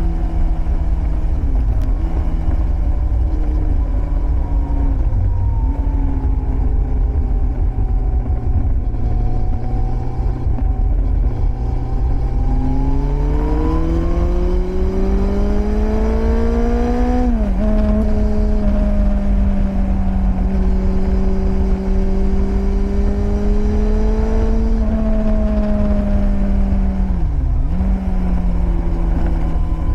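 Yamaha FZS1000 Fazer's carburetted inline four-cylinder engine running through a Scorpion aftermarket exhaust. The engine note dips briefly a few times, climbs steadily for about five seconds midway as the engine pulls, then drops sharply, as at a gear change, and settles again.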